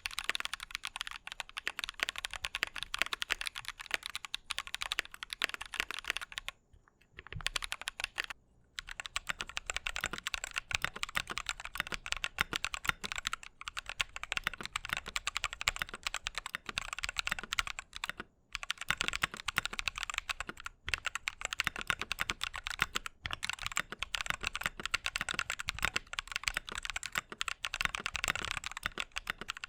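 Fast, continuous typing on a mechanical keyboard with lubed Drop Holy Panda v2 tactile switches in an aluminium plate: a dense stream of keystroke clacks, broken by brief pauses about 7, 8.5 and 18 seconds in.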